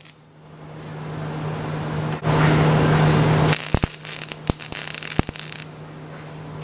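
MIG welder arc crackling as steel is welded onto a cast iron anvil. It is loudest and steadiest a couple of seconds in, then goes on with a few sharp clicks and stops about two-thirds of the way through.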